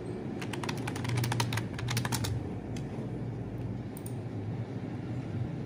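A quick run of key clicks, like typing on a keyboard, for about two seconds, then a few scattered clicks, over a low steady hum.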